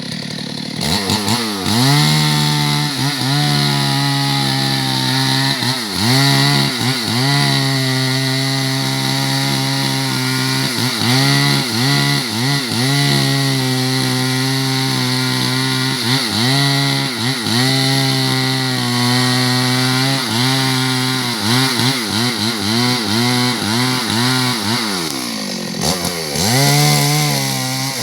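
Two-stroke chainsaw running at high revs while cutting wood, its engine pitch dipping and recovering over and over as the chain bites. Near the end the revs fall away and then pick up again.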